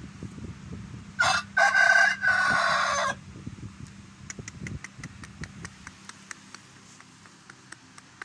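Aseel rooster crowing once, loud, starting about a second in and lasting about two seconds, with faint scattered clicks afterwards.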